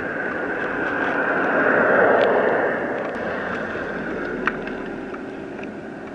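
A vehicle driving past, swelling to its loudest about two seconds in and then fading, with a few faint clicks.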